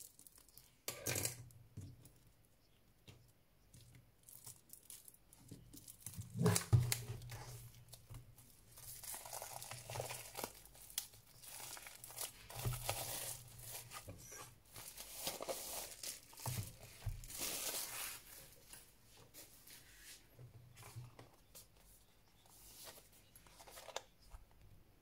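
Plastic shrink wrap on a boxed album being slit with a small box cutter and peeled off by hand, crinkling and tearing in irregular bursts. The loudest crackle comes about a quarter of the way in, and the crinkling thins out over the last few seconds.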